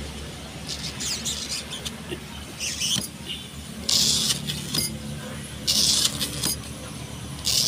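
A hand-held knife slicing into thick tyre rubber in short scratchy strokes, about five cuts a second or two apart.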